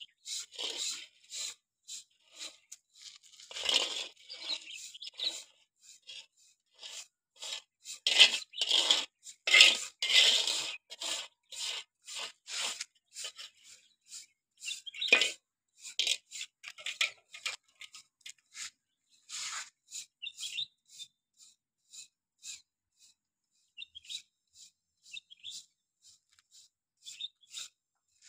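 Small steel trowel scraping wet cement grout in a metal pan and along a crack in a concrete floor. The scrapes are short and irregular with pauses between them. The loudest come about 8 to 11 seconds in, with a sharp one near 15 seconds, and they grow fewer and fainter toward the end.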